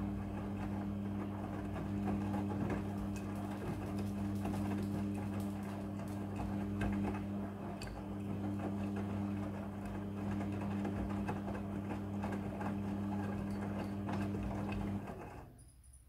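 Midea front-loading washing machine tumbling a load of clothes in its drum during the wash: a steady motor hum with the rustle and knock of the tumbling load. The drum stops about a second before the end and the hum cuts off.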